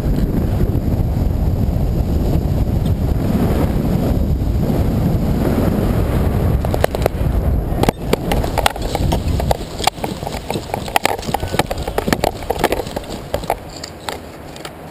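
Wind rushing over the microphone as a paraglider glides in low to land. About eight seconds in the wind dies away and is followed by a run of irregular knocks and rustles from touchdown and running steps on dry ground as the wing comes down.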